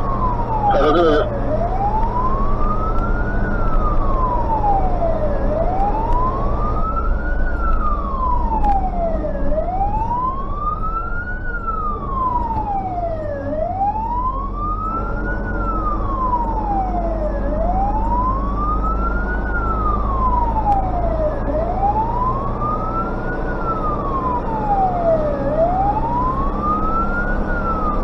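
Fire engine siren wailing, sweeping slowly up and down about every four seconds, heard from inside the cab of a Tatra 148 over the drone of its engine. A short falling beep sounds about a second in.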